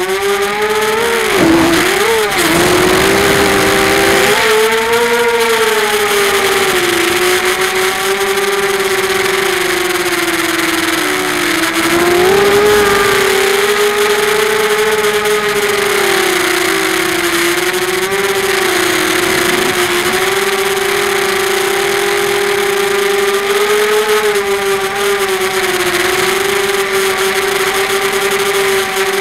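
QAV250 quadcopter's four Sunnysky 2300KV brushless motors spinning 5x4 props, heard from the onboard camera: a loud buzzing whine whose pitch rises and falls with the throttle, dipping sharply about two seconds in and briefly again near eleven seconds.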